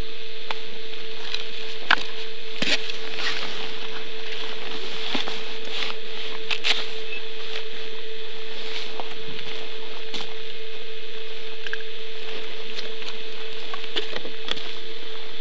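Scattered short crackles and clicks over a steady hum and hiss, with sharper clicks about two, three and seven seconds in.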